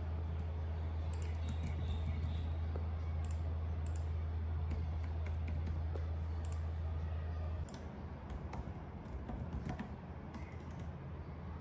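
Typing on a laptop keyboard: a run of light key clicks over a steady low hum that cuts off about two-thirds of the way through.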